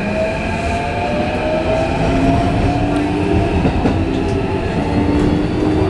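Keikyu 1500 series train's Mitsubishi IGBT-VVVF inverter and traction motors whining, the tones climbing in pitch in small steps as the train accelerates, over the rumble of wheels on rail, heard inside the passenger car.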